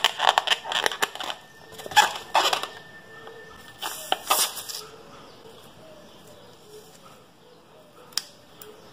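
Hands handling a filled rubber balloon and scissors cutting into it: dense clicking and crackling for the first couple of seconds, another cluster about four seconds in, then quieter, with one sharp snip near the end.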